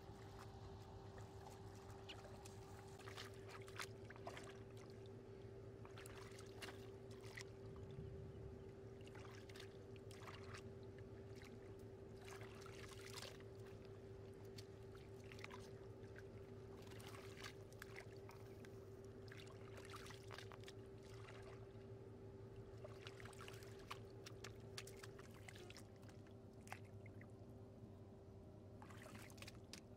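Faint, irregular splashing and sloshing of muddy water as hands dig and scoop through the mud of a shallow canal, over a steady thin hum that stops a few seconds before the end.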